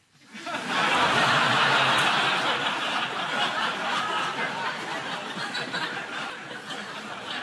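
Studio audience laughing, a dense wash of many people that swells in about half a second in and eases off a little toward the end.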